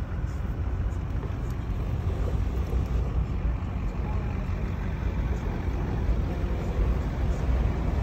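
Steady low rumble from inside a pickup truck's cab in a blizzard: the truck's running noise mixed with wind, growing a little louder toward the end.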